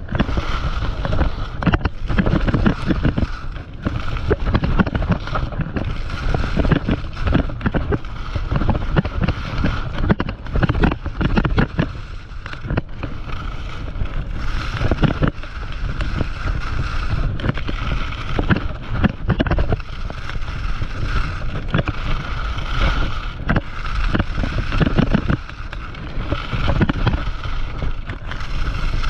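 Atomic alpine skis carving fast down groomed snow: edges scraping and chattering in quick, irregular strokes over a constant rush. Wind buffets the microphone throughout.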